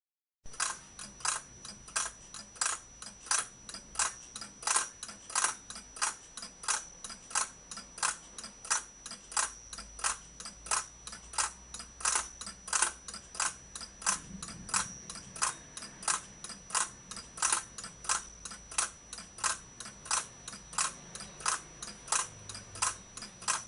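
Escapement of a pendulum clock movement ticking, an even run of sharp ticks about three a second, starting about half a second in. It is the movement's first trial run, with none of its adjustments yet made.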